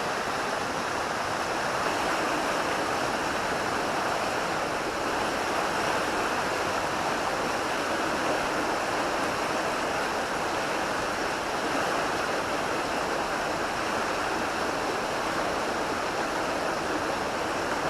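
Steady rushing of river current, the Sheyenne running high.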